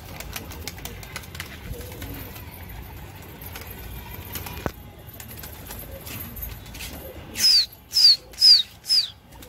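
Domestic pigeons' wings flapping faintly as the flock is flown. Near the end come four loud, sharp whistles about half a second apart, each falling in pitch, a pigeon keeper's whistle to the flock.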